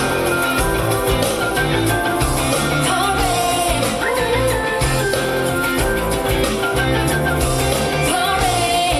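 Live pop-rock band performance with a woman singing lead over a full band with a steady beat.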